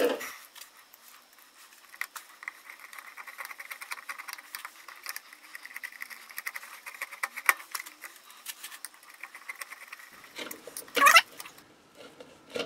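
Hand screwdriver driving the small screws of a headlight's outer retaining ring: scattered small clicks and scratchy metal-on-metal turning, with a short rising squeak near the end.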